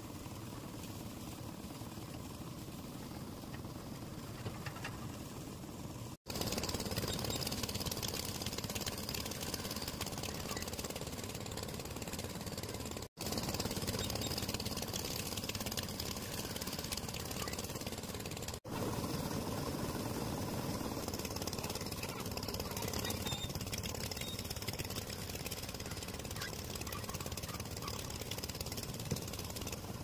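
Engine-driven concrete mixer running steadily with a dense mechanical rattle. The sound cuts out for an instant three times, about six, thirteen and eighteen seconds in.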